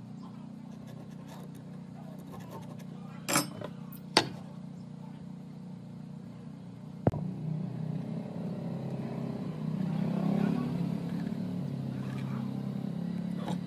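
A motor running steadily with a low hum that grows louder and rougher about seven seconds in, with a few sharp knocks over it.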